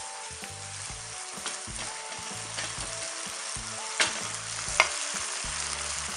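Bulgogi sizzling and bubbling in a frying pan as it is stirred with a silicone spatula, the sauce cooking down. There are two sharp knocks against the pan, about four seconds in and again just before five.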